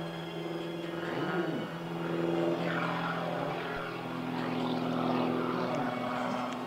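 Piston engines of Extra aerobatic propeller planes droning in flight, the pitch shifting as they manoeuvre, with the engine noise swelling twice.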